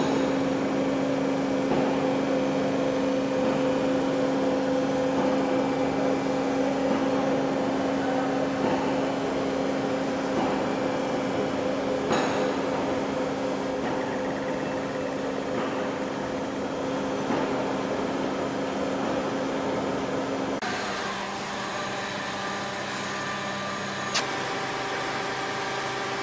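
Large industrial lathe running as it turns a heavy steel cylinder: a steady machine hum with a constant tone. About twenty seconds in, it gives way to a different steady machine hum.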